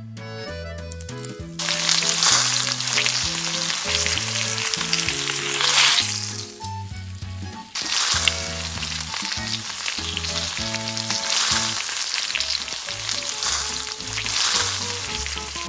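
Chocolate dorayaki batter sizzling as it fries in a miniature metal wok over a flame. The sizzle starts about a second and a half in, breaks off briefly around six seconds, and resumes.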